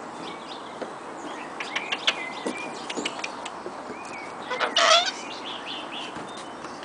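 Sulphur-crested cockatoo making short calls, with one louder call about five seconds in. Small birds chirp faintly in the background.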